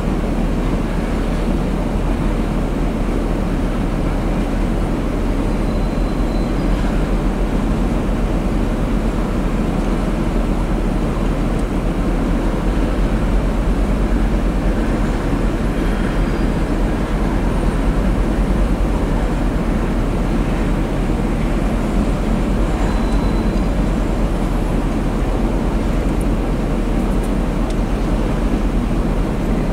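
Freight cars (tank cars and boxcars) rolling past at steady speed: a continuous rumble of steel wheels on rail, with a few brief faint high-pitched squeals.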